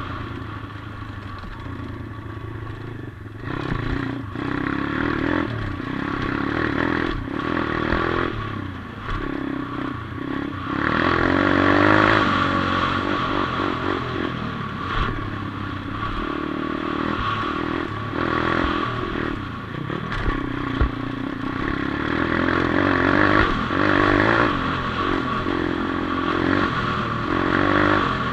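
Atomic 140cc pitbike's single-cylinder four-stroke engine revving up and dropping back again and again as the bike is ridden along a dirt track. Knocks and rattles come from the bike over the bumps.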